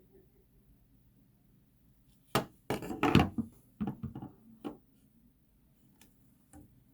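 Large folding knife being handled: a run of sharp clicks and knocks lasting about two and a half seconds, loudest near the middle, then two lighter clicks near the end.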